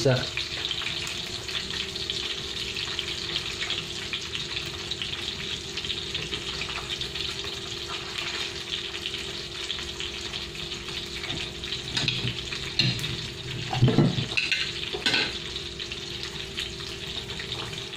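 Piece of dalag (snakehead fish) sizzling steadily as it fries in a hot pan, with a steady low hum underneath. A few brief louder sounds come about two-thirds of the way in.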